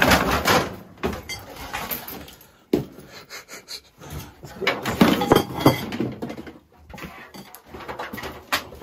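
Irregular clattering and knocks of stored items being bumped and shifted by hand, with a few louder knocks about a third of the way in and again past the middle.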